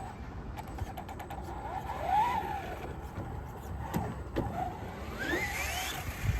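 Electric motor of a radio-controlled car whining, its pitch rising and falling as the throttle is worked, with a long rising sweep near the end.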